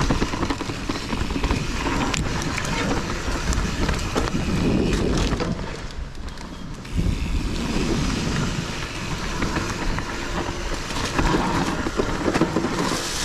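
Kona Process 153 mountain bike riding down a dirt trail: tyres rolling over rough ground and the bike rattling, with many short knocks. It goes briefly quieter about six seconds in, then comes back loud all at once.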